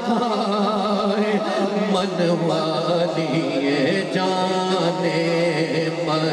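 A man singing a naat into a microphone through the hall's sound system, in long bending vocal lines over a steady low drone.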